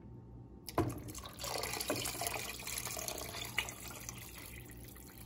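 Water poured from a glass measuring jug into a stockpot of broth: a steady splashing pour that tapers off toward the end. A short knock comes just before it, about a second in.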